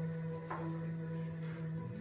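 Live improvised music: a steady low note is held and fades near the end, with one short note struck about half a second in.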